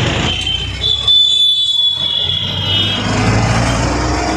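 Road traffic with motor vehicle engines running, and a shrill high tone lasting about two seconds, starting about a second in. From about three seconds in, the steady low engine sound of an auto-rickshaw being ridden.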